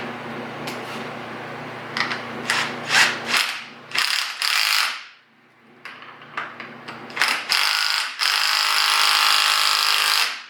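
Ratchet running a nut down in short clicking bursts, then one longer run of about two seconds near the end, as the top nut of a new shock absorber is tightened.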